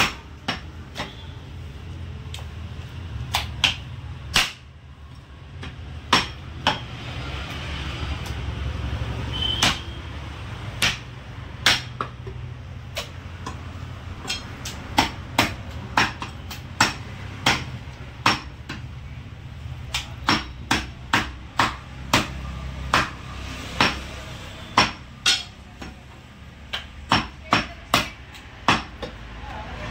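Heavy butcher's cleaver chopping goat meat and bone on a wooden stump chopping block: sharp chops, spaced out at first, then in quick runs of about two a second from about halfway through.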